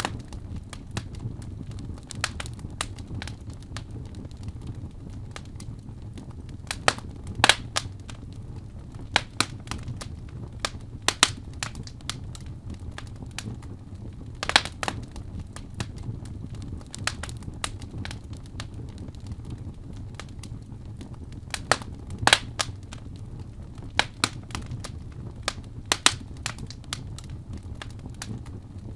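Wood fire burning in a fireplace: a steady low rumble of the flames with sharp, irregular crackles and pops every second or so, a few of them much louder.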